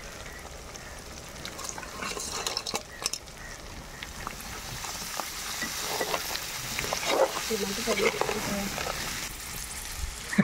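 Crab pieces frying in oil and masala in a pan, sizzling while being stirred with a metal slotted spatula, with short scrapes of the spatula against the pan. The sizzling grows gradually louder.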